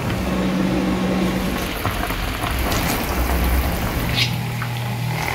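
A large aluminium stockpot of orange peel in sugar syrup boiling vigorously: a steady bubbling, hissing noise, with a low steady hum underneath.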